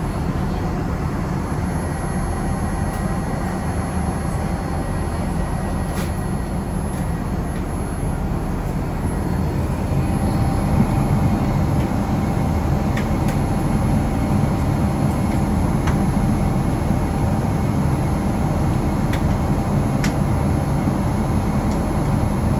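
Steady cabin noise inside a Boeing 787-9 in flight: the low rumble of its Rolls-Royce Trent engines and the rush of air, which grows a little louder about ten seconds in.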